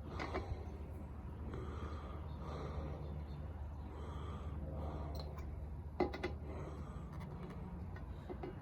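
Hard, effortful breathing in repeated breaths while straining on a lug wrench to tighten a spare tire's lug nuts, with a sharp metallic click about six seconds in, over a steady low hum.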